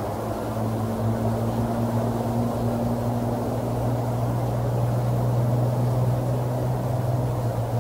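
A steady, low mechanical drone with a humming pitch, a little louder through the middle, with no distinct clicks or calls over it.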